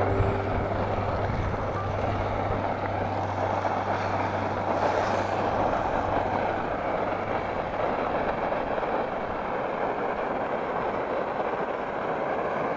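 Beef steaks sizzling steadily in hot oil in a frying pan on a camping gas stove. A steady low hum runs underneath and stops about halfway through.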